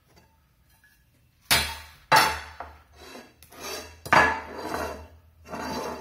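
Nonstick cookware pots, pans and glass lids being shifted and set down on a table, clanking and clinking several times. The loudest clanks come about a second and a half, two seconds and four seconds in.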